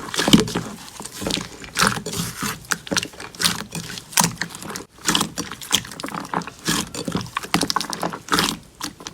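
Slime being squeezed and poked by hand, giving irregular sticky clicks, pops and squelches several times a second.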